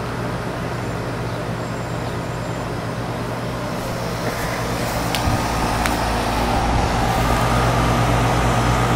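A machine running with a steady low hum under a wash of noise, growing a little louder in the second half, with a couple of faint clicks about five seconds in.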